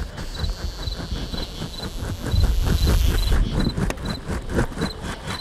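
Experimental ambient sound piece built from insect-like textures: a high, cricket-like triple chirp repeats about twice a second over quick, even ticking. About two seconds in, a deep rumble swells for roughly a second.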